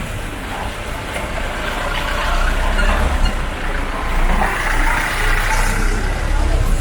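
Busy street ambience dominated by motor traffic: vehicle engines running close by with a steady low rumble, the noise building from about two seconds in.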